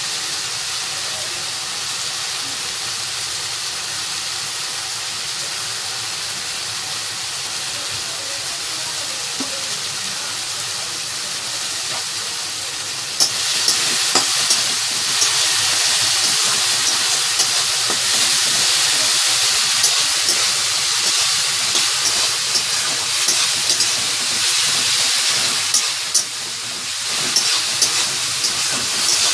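Tomato gravy sizzling in a pan, a steady hiss that grows louder about 13 seconds in, with scattered crackles and pops.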